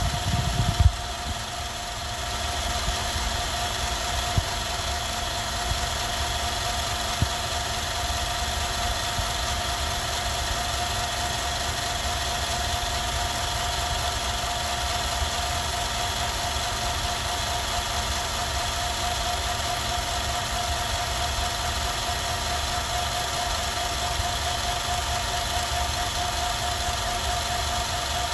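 Film projector running: a steady mechanical whir and low clatter with a constant hum, with a few louder knocks in the first second.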